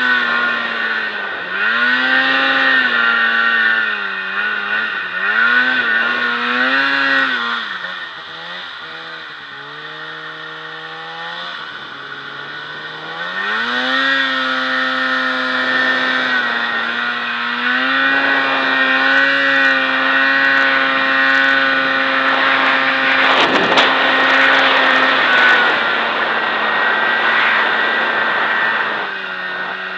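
Snowmobile engine running under throttle, its pitch swinging up and down. It drops to a lower, quieter run for a few seconds about a third of the way in, then climbs back and holds a steady pitch, with a brief rushing noise about three-quarters through.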